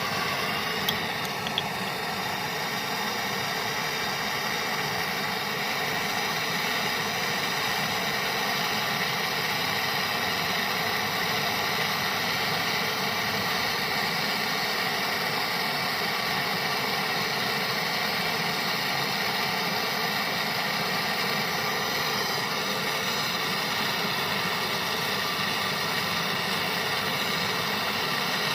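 A machine running steadily with a constant hum, with two light clicks about a second in.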